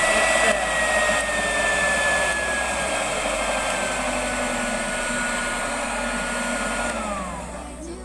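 Electric hand mixer running at speed, its beaters whipping eggs and sugar into a thick batter. The motor whine slowly sinks in pitch, then winds down near the end as the mixer is switched off.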